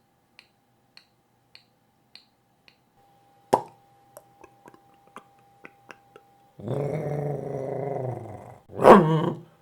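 Mouth imitations of sound effects by a human mimic. First a kitchen timer ticking slowly, then, about three and a half seconds in, a sharp cork pop followed by small clicks of wine being poured and tasted. Then a dog's growl lasting about two seconds, with a short, loud, falling yelp near the end.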